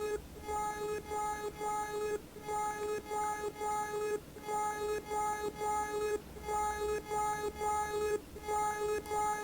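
Software synthesizer patch in VCV Rack playing a looping sequence of short notes, mostly on the same pitch at about three notes a second, with a short gap roughly every two seconds.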